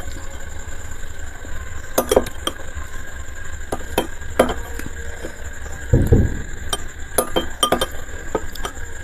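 Steel spoon clinking and scraping against a ceramic bowl while scooping up the last of the food, with about a dozen irregular sharp clinks. There is a soft low thump about six seconds in.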